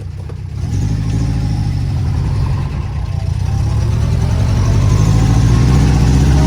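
Vintage Austin FL1's engine pulling away and accelerating, heard from inside the car. Its note gets louder less than a second in and keeps building, with a brief dip a little over two seconds in.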